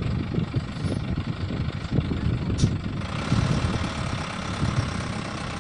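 Diesel engine of a heavily loaded Iveco truck running at low speed as the truck creeps forward, a steady low rumble.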